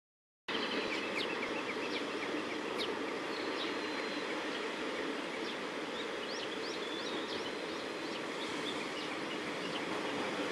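Small birds chirping in short, scattered calls over a steady outdoor rumble, as a distant diesel railcar approaches and grows slightly louder near the end.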